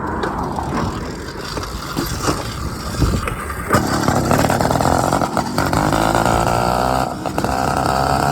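Small two-stroke motorized-bicycle engine running, getting louder about four seconds in.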